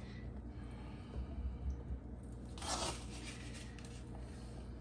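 Soft handling sounds of fresh fruit being picked out of a bowl by hand, with a brief rustle a little after halfway, over a faint low hum.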